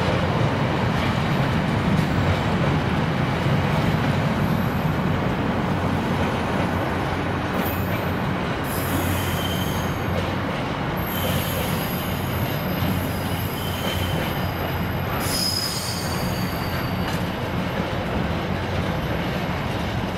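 Container freight wagons rolling past with a steady low rumble. From about eight seconds in, high-pitched wheel squeal comes and goes in several stretches.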